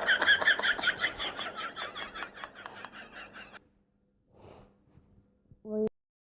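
A person laughing in quick breathy pulses that fade out after about three and a half seconds, followed near the end by a brief vocal sound.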